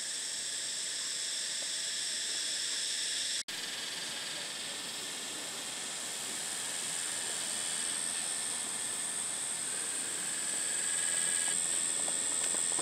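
A chorus of cicadas droning steadily in several high-pitched bands at once, cutting out for an instant about three and a half seconds in.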